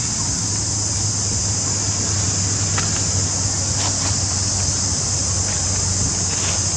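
Steady outdoor background: a constant high-pitched drone over a low hum, with a few faint ticks around the middle.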